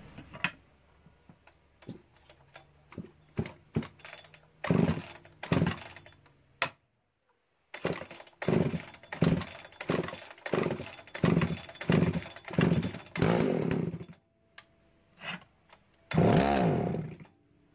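Old Husqvarna two-stroke chainsaw being pull-started on the recoil starter: a run of quick cord pulls, each a short rasp of the engine turning over, then near the end a longer burst of about a second with the engine note bending in pitch.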